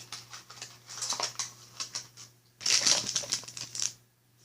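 Packaging rustling and crinkling as it is handled, in irregular bursts with small clicks, busiest about two and a half seconds in and dropping to near silence just before the end.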